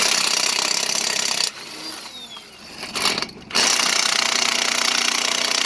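Impact wrench hammering on a lug nut in two long bursts, about a second and a half, then a short pause, then a longer run of about three seconds. It is the last lug nut, stubborn enough that a tire iron is fetched next.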